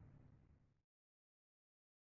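Near silence: faint low room noise that cuts off to dead silence just under a second in.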